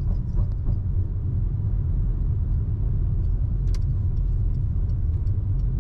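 A car driving along a road: a steady low rumble of engine and tyre noise, with a single faint click a little under four seconds in.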